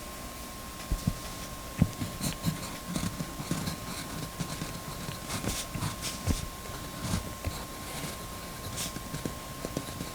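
Retro 1951 Tornado mechanical pencil with 1.1 mm lead writing on paper: irregular scratching strokes with small taps of the pencil on the paper and desk, starting about a second in.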